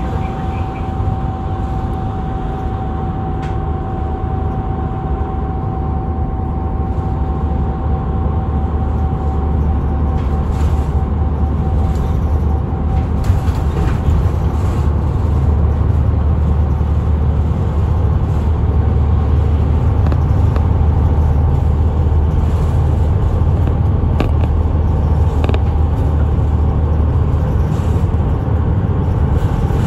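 Small route bus driving along, heard from inside the cabin: a steady low engine and road rumble that grows a little louder over the first half, with a thin whine that fades out about halfway.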